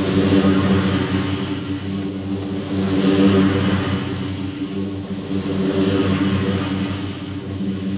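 Scag Cheetah zero-turn mower's engine running under load with the deck cutting grass, played sped up with its pitch kept natural. It is a steady engine drone that swells and fades every two or three seconds.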